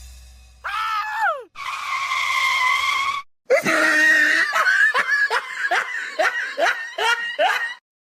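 A voice: a short falling cry, then a harsh held scream, then a fast run of short laugh-like calls, about two or three a second, which stops abruptly near the end.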